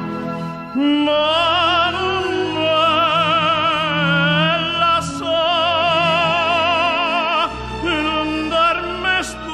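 Operatic male voices singing long held notes with wide vibrato. One phrase ends and a new one begins about seven and a half seconds in.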